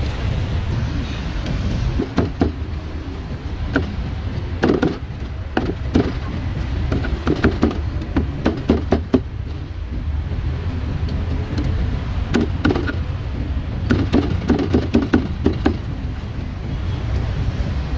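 A cleaver chopping grilled meat in quick runs of sharp strikes, two runs with a pause between, over a steady low rumble of street traffic.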